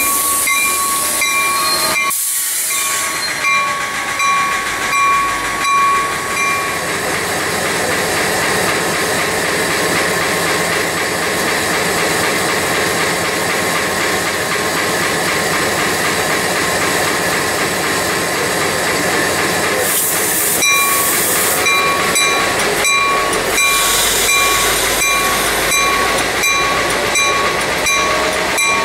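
San Diego Coaster F40PHM-2C diesel locomotive running loudly and steadily close by as it stands at the station platform. A thin, high steady whine over the engine noise drops out a few seconds in and returns near the end.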